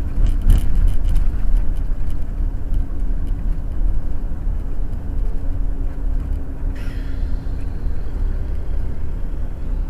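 Steady low rumble of engine and road noise inside the cab of a diesel motorhome, the Cummins ISL 400 inline-six, cruising at about 27 mph while towing a car. A short click comes about half a second in and a brief hiss about seven seconds in.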